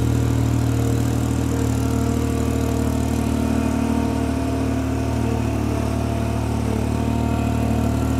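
Ventrac compact tractor's engine running steadily as it drives along pushing snow with a front leaf plow: an even drone with no change in speed.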